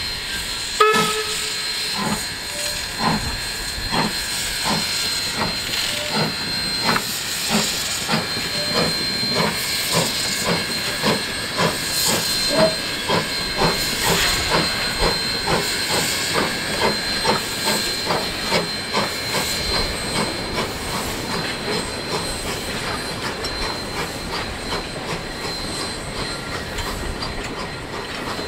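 PB15 steam locomotive's exhaust chuffing in regular beats that gradually quicken as it gathers speed, over a steady hiss of steam. A sharp knock about a second in is the loudest sound.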